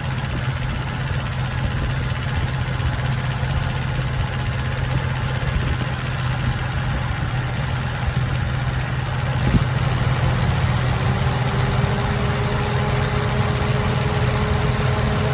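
2005 Dodge Durango's 5.7L Hemi V8 idling steadily with the air conditioning running. About nine and a half seconds in there is a single sharp click, after which the sound gets slightly louder and a faint whine that slowly rises in pitch joins in.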